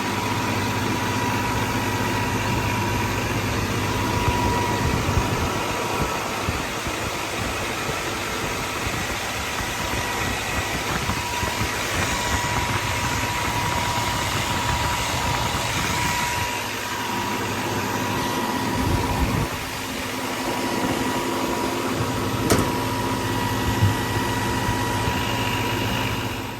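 A 9250 combine's diesel engine idling steadily, just started after its fuel filter was changed and the fuel system bled. A thin, steady high tone runs alongside the engine.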